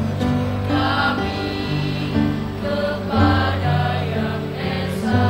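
Mixed school choir of girls' and boys' voices singing together in harmony, holding long chords with deep low notes beneath.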